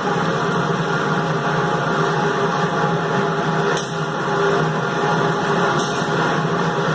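Automatic 20-litre jug washing, rinsing, filling and capping machine running with a steady mechanical hum. Three short hisses break in over it.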